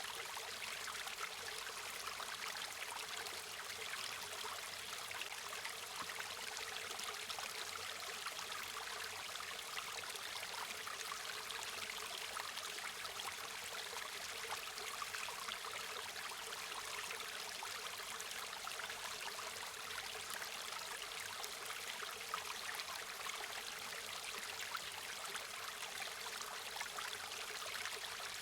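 A river running steadily over stones: an even, constant rush of flowing water with fine splashing detail.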